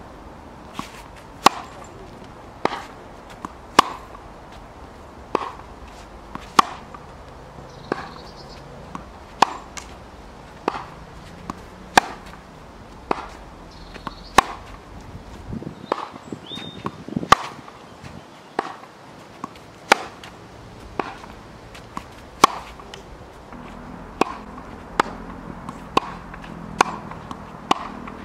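Tennis ball struck by a racket again and again in a groundstroke drill. Sharp pops come about once a second, some louder than others.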